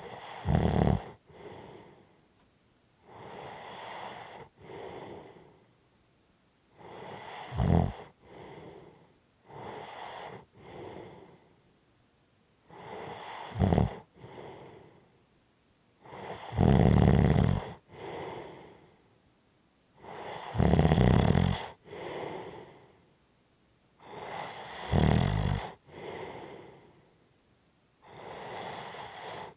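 A person snoring heavily in slow, regular breaths, about one every three to four seconds. Most breaths carry a loud, low snore followed by a softer breath out.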